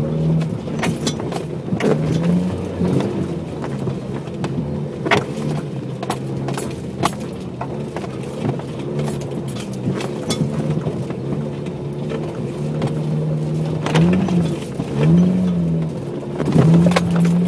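Jeep Cherokee engine running under way, its pitch rising and falling a few times near the end as the throttle changes. Scattered sharp knocks and clatters run through it.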